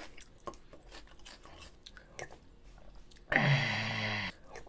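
Close-miked chewing of food, with small soft crunches. About three seconds in, a loud, low-pitched vocal sound lasting about a second, its pitch falling slightly.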